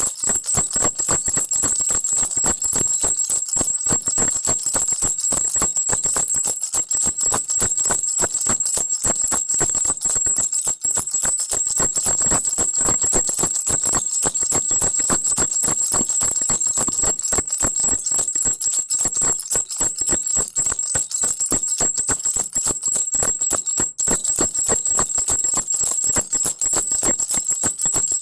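Crocodile baby rattle shaken without a break: fast, dense jingling clatter of the beads inside, over a steady high ringing tone.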